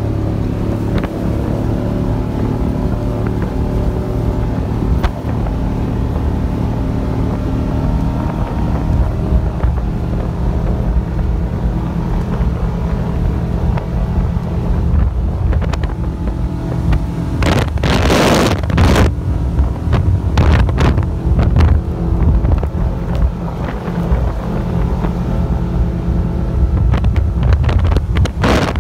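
Powerboat engine running steadily at speed, with the hull rushing over choppy water and wind buffeting the microphone. A loud rush of noise breaks in about two-thirds of the way through.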